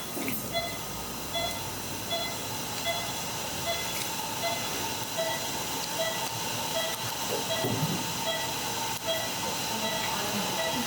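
Steady hiss with a short electronic beep repeating evenly, about every three-quarters of a second.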